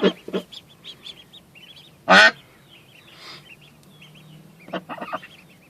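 Pekin duck giving one loud quack about two seconds in, among soft high peeping from newly hatched ducklings, with a few shorter calls near the end.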